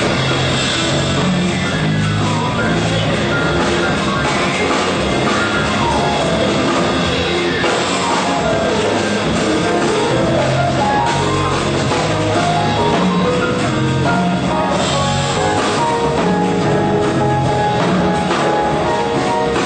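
Jazz piano trio playing live: piano, double bass and drum kit together at a steady level. About eight seconds in, a quick run of notes steps down and then climbs back up.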